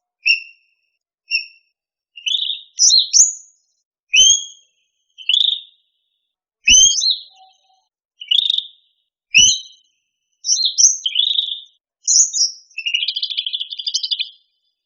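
Cucak rante songbird calling: a series of short, clear chirped whistles about once a second, ending in a fast scratchy chatter near the end. Three faint low knocks sound under the calls.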